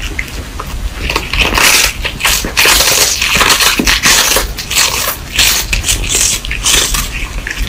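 A cat gnawing on a hard, dry chew held in its paws: a close, loud run of irregular crunching and crackling bites.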